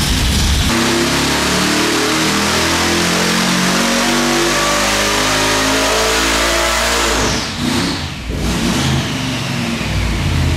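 Supercharged 588 ci Chrysler Hemi on E85, run on an engine dyno: it pulls from idle up past 6500 rpm under full load, with the blower screaming, then the throttle closes about seven seconds in and the revs fall away.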